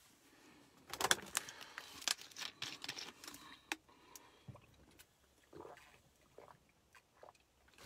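Clear plastic water bottle crinkling and crackling as it is handled and drunk from, busiest in the first few seconds, then a few fainter small sounds.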